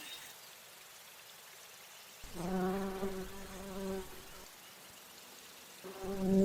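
Bumblebee buzzing in flight in two bouts, a low steady hum with a rich overtone, starting about two seconds in and again near the end, with quiet between.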